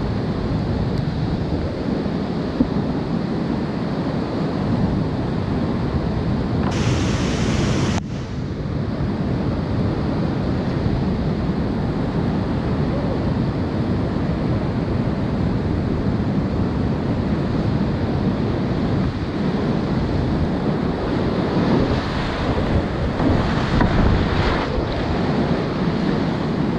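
Creek whitewater in high flood flow, a loud steady rush of rapids heard from a kayak's bow as it paddles down them. The rush grows louder near the end as the kayak runs through the waves and water splashes over the deck.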